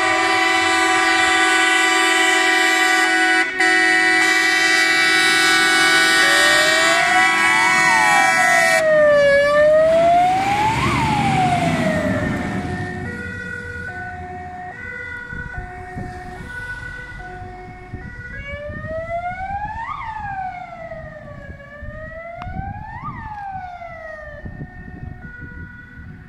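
Scania fire engine responding with air horns blaring a steady chord for about nine seconds over a wailing siren, then passing close with heavy engine noise. As it drives away the siren alternates between a two-tone pattern and slow rising-and-falling wails, growing fainter.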